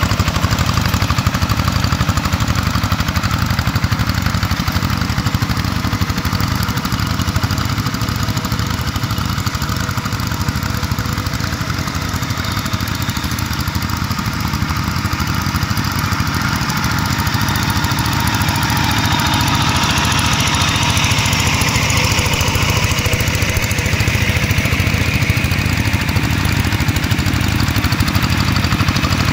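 Single-cylinder diesel engines of two-wheel hand tractors running steadily under load while plowing, the nearer one loudest. The sound is slightly quieter in the middle.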